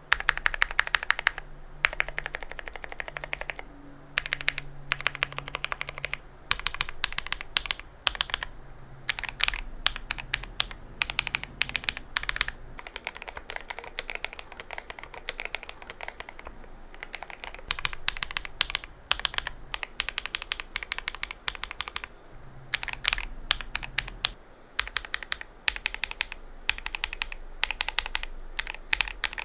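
Typing on a GMMK Pro mechanical keyboard with stock KTT linear switches: fast runs of keystrokes broken by short pauses.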